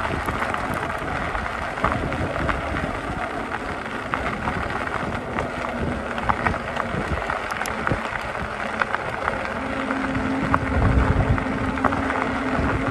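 Electric bike riding over a gravel forest road: tyres rolling and crunching on gravel with scattered small clicks of stones, and wind rumbling on the microphone. A steady hum joins in about two thirds of the way through.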